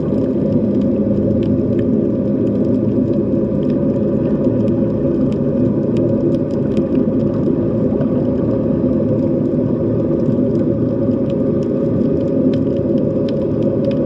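Undersea ambience recorded underwater: a steady low drone with a few faint held tones in it, and faint scattered clicks throughout.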